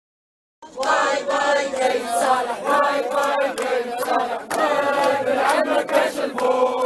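A crowd of protesters chanting a slogan in unison, cutting in abruptly about half a second in after silence.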